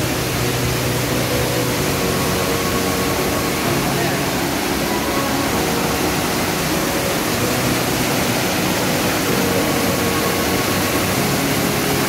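Steady, loud rush of falling water from a waterfall close by.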